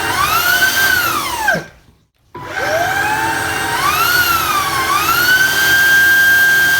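Shunzao L1 cordless stick vacuum motor spinning up to a high whine, then switching off and winding down about a second and a half in. After a short gap it starts again, its pitch dips and climbs back around four to five seconds in, and it then runs at a steady high whine.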